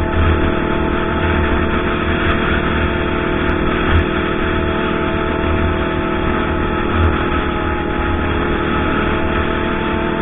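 Kawasaki Ninja ZX-25R's 250 cc inline-four engine running on the road at a steady engine speed, its pitch holding level throughout. Wind buffets the microphone underneath.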